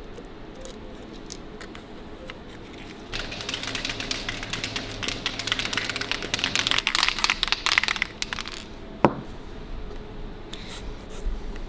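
Masking tape crinkling and tearing as it is pulled and pressed down over a speedometer face, a dense crackling that grows louder for several seconds and stops. Then a single sharp, ringing click.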